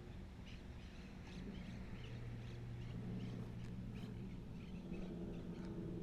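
Faint scattered bird chirps over a low, steady hum.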